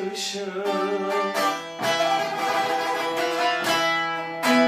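Turkish folk song: a sung line ends in the first second, then plucked string instruments carry a short instrumental passage with sharply struck notes.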